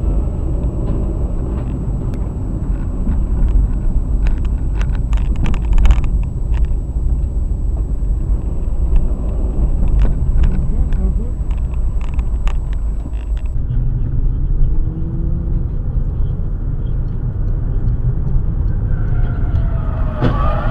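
Steady engine and road rumble of a moving car, with scattered sharp knocks a few seconds in and again around the middle. About two-thirds of the way through, the sound changes abruptly to a duller rumble.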